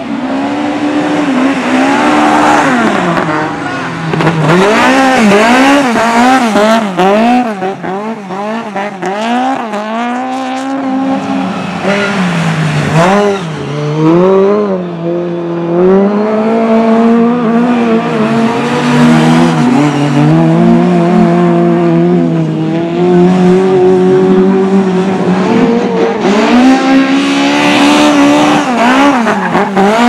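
Lada rally car engines revving hard on a loose dirt track. The pitch swings quickly up and down through the first ten seconds or so, then holds higher and steadier with short dips.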